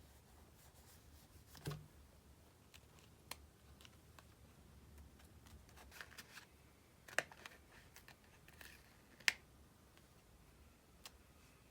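Quiet, sparse clicks and light crackles of sticker sheets and paper being handled as stickers are peeled off and pressed into a diary, with a few sharper ticks, the loudest about seven and nine seconds in.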